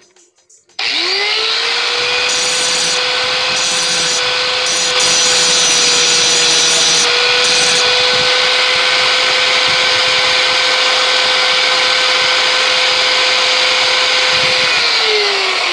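Ryobi angle grinder with a sanding disc spinning up about a second in, then running steadily while grinding the sawn end of a bolt flat. Near the end it is switched off and winds down with falling pitch.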